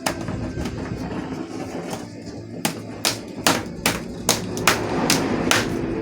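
A series of sharp knocks or taps, scattered at first, then about two to three a second through the second half, over a steady background noise.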